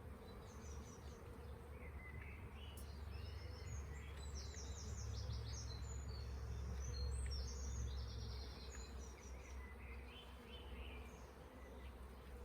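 Honeybees buzzing around an opened hive, stirred up and defensive. A bird sings in the background, and a low rumble swells through the middle.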